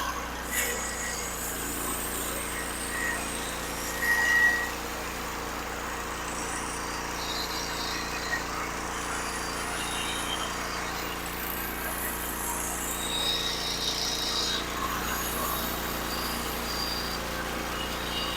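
Norwood HD36 portable bandsaw mill running steadily, its engine holding an even speed as the band blade saws through a cedar beam.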